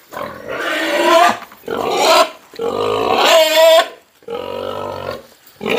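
Pigs squealing loudly for feed at feeding time: about four drawn-out squeals, the fourth lower and rougher.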